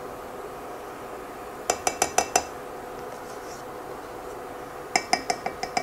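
A kitchen utensil clinking against a saucepan with a metallic ring: a run of about five quick taps a couple of seconds in, and another run near the end, as cornstarch is added to the glaze in the pan.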